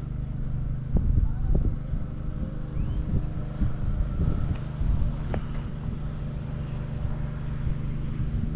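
Steady low engine hum of motor traffic on a nearby road, with a few faint knocks.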